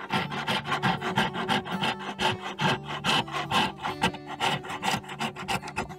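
Brass-backed hand backsaw cutting a small block of wenge hardwood, with rapid, even push-pull strokes of about four a second. Faint background music sits beneath the sawing.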